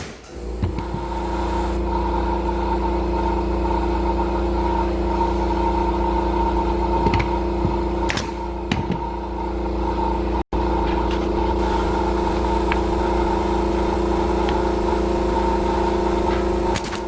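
A machine's motor running steadily at one constant pitch, with a few light clicks over it.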